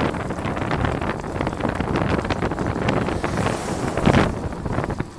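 Wind rushing over the microphone of a racing cyclist's camera at speed, with road noise and frequent small knocks and rattles. There is a louder gust about four seconds in.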